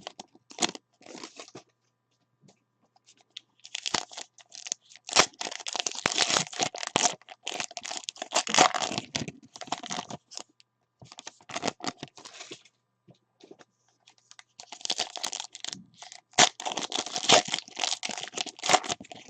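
Foil wrapper of a trading-card pack being torn open and crinkled by hand, in several bouts of crackling separated by short pauses.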